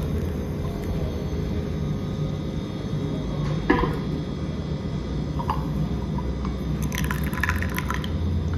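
Pour-over coffee brewing in a plastic drip-filter cone: hot water poured from a kettle onto the grounds and trickling through the paper filter, with a steady wash of sound. A few light clicks of the plastic filter holder being handled come near the end.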